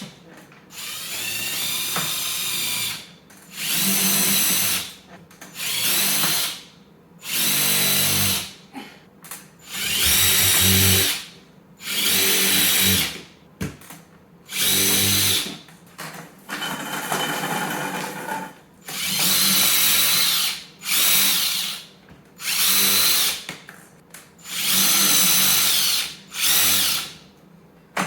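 Power drill making holes for curtain-rod brackets in a wall, run in about a dozen short bursts of one to two seconds, the motor whine rising at the start of each pull of the trigger.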